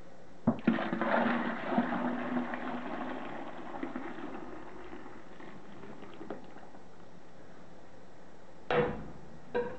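Hot liquid soap and soda-crystal solution poured from a stainless steel pot into a plastic bucket of warm water: a sharp click about half a second in, then a splashing gush that tails off after about four seconds. Two short knocks near the end.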